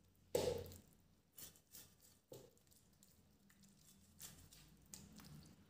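Raw chicken being handled and pressed on a plastic cutting board: one louder thud about half a second in, then a few faint scattered taps and clicks.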